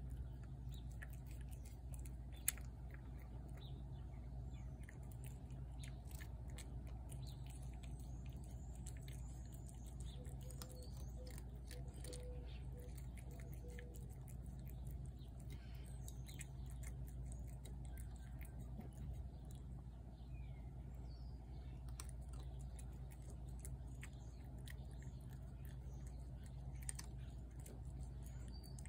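Feral tabby cat eating wet food off a plate: steady chewing with many small wet clicks and smacks, one sharper click about two seconds in, over a steady low hum.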